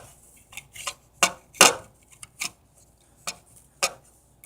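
Small hard plastic toy pieces being handled, clicking and clattering in about seven separate sharp taps, the loudest about a second and a half in.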